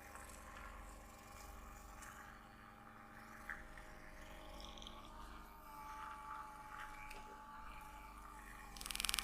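Faint rubbing and scraping of hands massaging skin over a steady low hum, with a single click about three and a half seconds in. Near the end a loud, rapid buzzing rattle starts.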